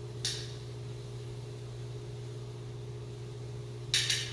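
Steady low machine hum of kitchen equipment, with a brief light clink of metal tongs on a plate just after the start and a louder cluster of clinks about four seconds in.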